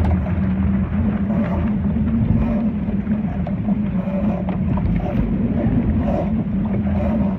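A boat's motor running at a steady pitch, with wind on the microphone and water splashing.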